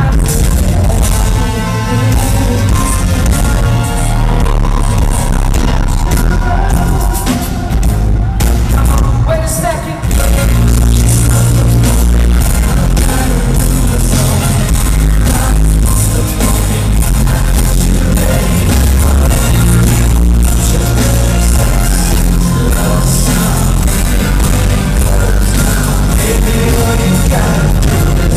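Live band music played loud through an arena sound system: drums and heavy bass, with a male lead singer's vocals on top.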